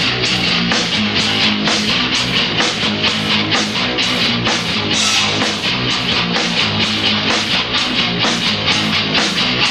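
Live rock band playing loud, with electric guitar strumming and a drum kit keeping a fast, steady beat of about three hits a second.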